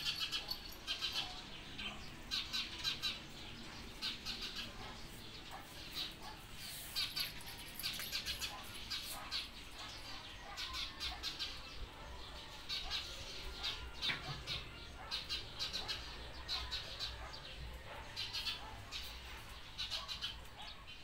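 Small birds chirping and twittering in quick, short, high-pitched calls that keep repeating.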